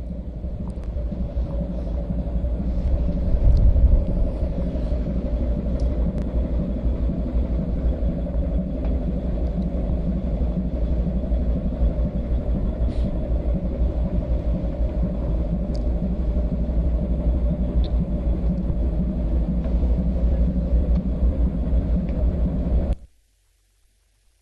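Steady low rumble of a ship's engine running, with a constant droning tone. It cuts off suddenly near the end.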